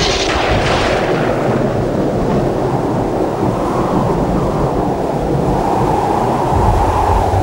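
Thunderstorm: a sharp thunderclap crack in the first second, then continuous rumbling thunder over heavy rain, with a deeper rumble swelling near the end.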